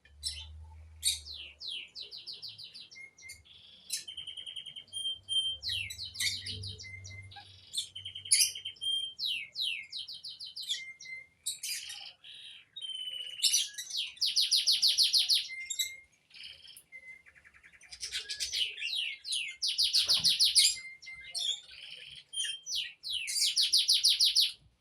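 Several songbirds singing and calling at once: fast buzzy trills, quick down-sweeping chirps and short whistled notes.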